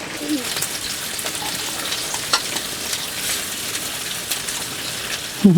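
Food sizzling steadily in a hot pan, with a few scattered small clicks and pops.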